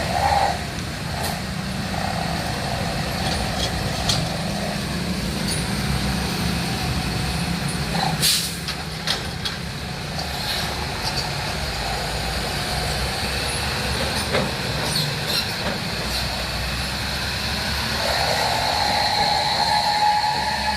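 Heavy diesel trucks and buses running in road traffic, with a sharp air-brake hiss about eight seconds in.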